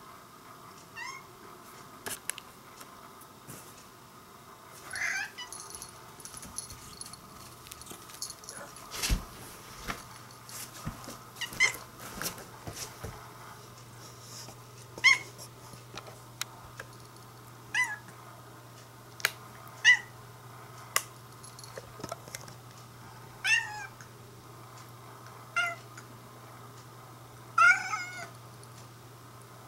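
Orange-and-white domestic cat giving short meows every two to three seconds, about nine in all, crying out at a moth flying out of its reach. A few sharp clicks fall between the calls.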